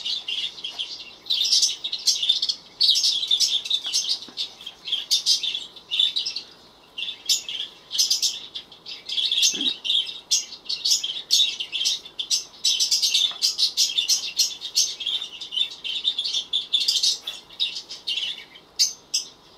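Recorded birdsong played back on a smartphone: many quick, high chirps and tweets in rapid runs, with only brief gaps.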